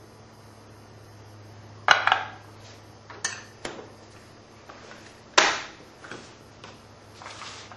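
Reloading gear being handled on a bench: a series of sharp clinks and knocks, the two loudest about two seconds in and a little past five seconds, over a low steady hum.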